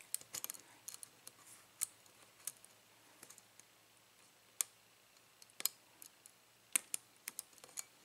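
Faint, irregular metallic clicks of a lock pick working the pin stack of a Luke Locks Grip padlock: single-pin picking, the pick ticking against the pins under tension, a quick run of clicks at first, then single clicks about a second apart.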